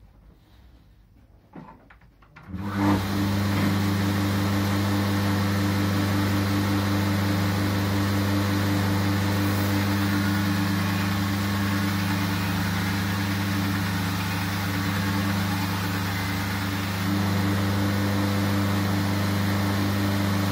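Belt grinder's electric motor starting suddenly about two and a half seconds in, then running steadily with a hum and the hiss of the abrasive belt as a steel blade is ground against it, throwing sparks.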